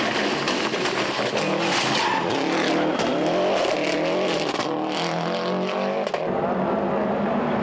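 Subaru Impreza 555 rally car's turbocharged flat-four engine driven hard through corners, its pitch rising and falling with the throttle, with several sharp pops. About six seconds in the sound switches abruptly to a different engine note.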